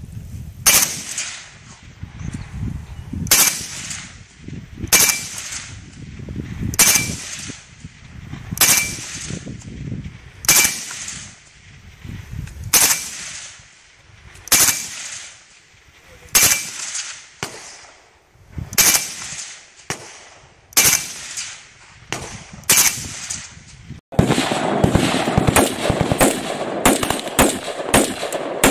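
AKS-74U 5.45x39 carbine firing single shots about every two seconds, each a sharp crack with an echoing tail. A little after twenty seconds another AKS-74U takes over, firing rapid shots several a second.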